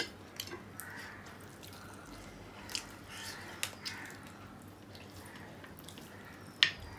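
Close-up eating sounds of people chewing rice and curry eaten by hand: scattered wet mouth clicks and smacks, with one sharp click near the end the loudest.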